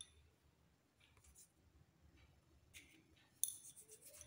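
Near silence, with faint rubbing and light taps of floured hands rolling small bits of wheat dough between the palms, a little louder in the last second.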